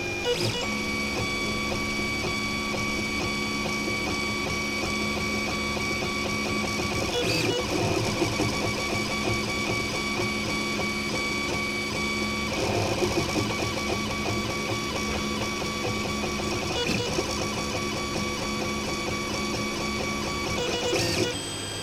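Stepper motors of a Prusa Mendel RepRap 3D printer running while it prints: a steady whine of several held tones that changes pitch every few seconds as the moves change, with short busier stretches of shorter moves between.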